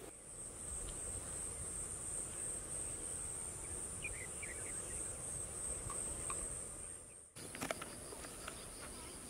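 Steady high-pitched insect chorus, with a few faint chirps about four seconds in. The chorus drops abruptly a little after seven seconds and continues weaker, with a few sharp clicks.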